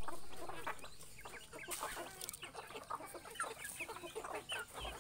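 A flock of free-range village chickens (ayam kampung) clucking, with many short calls overlapping at an uneven pace. A brief rustle comes about two seconds in.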